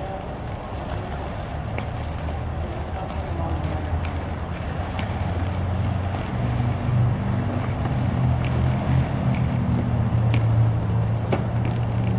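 Low, uneven rumble of wind buffeting the microphone, growing louder over the seconds, with a few faint knocks.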